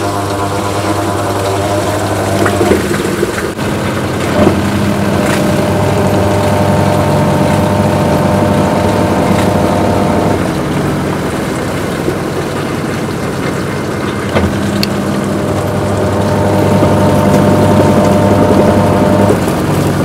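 Samsung washing machine running on a leak-test cycle after its hoses were replaced: a loud, steady mechanical hum. A higher whine joins the hum about four seconds in, drops out around ten seconds, and comes back from about fifteen to nineteen seconds.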